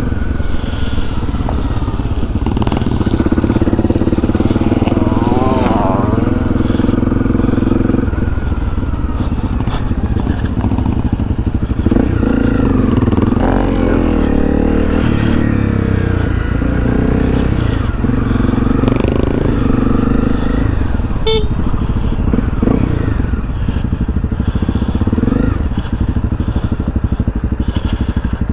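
Honda CRF250 single-cylinder trail bike engine running under way, its revs rising and falling with the throttle and gear changes.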